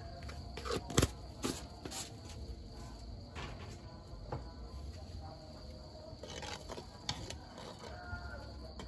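Insects calling in a steady high-pitched drone, with scattered sharp clicks and knocks, the loudest about a second in.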